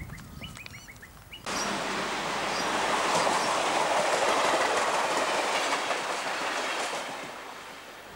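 A few bird chirps, then a diesel railcar passing close by: a loud rush of wheel-on-rail noise with clicks over the rail joints, which fades as the railcar runs away down the line.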